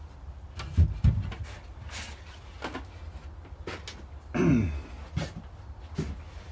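Handling noises of a wooden back plate being fetched and brought to the bench: two loud knocks about a second in, scattered light clicks, and a short creak falling in pitch about four and a half seconds in.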